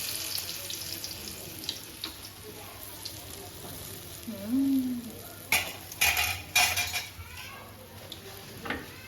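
Batuk, black-lentil fritters, sizzling as they fry in hot oil. Just past the middle, a utensil scrapes and knocks against the pan three times, loud.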